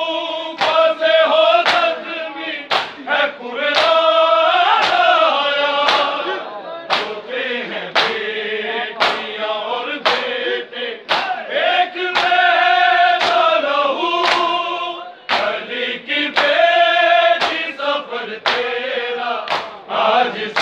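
Men chanting a noha, a Shia mourning lament, in chorus. A steady beat of sharp slaps from hands striking chests (matam) keeps time with the chant.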